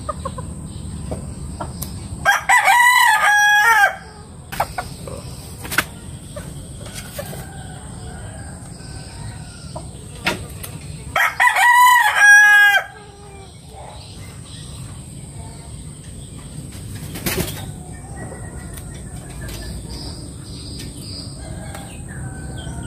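A rooster crows twice, two loud calls each about a second and a half long, about nine seconds apart. Between the crows come a few sharp clicks of scissors snipping feathers.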